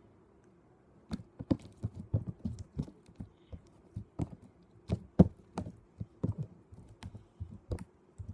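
Sticky homemade purple glitter slime being poked, pinched and pressed with fingertips, giving irregular sharp clicks and pops, about two or three a second, starting about a second in.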